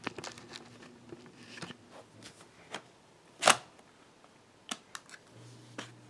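Small plastic clicks and rustles as the drive bay cover on the underside of a Lenovo ThinkPad E545 laptop is fitted back on, with one sharp click about three and a half seconds in.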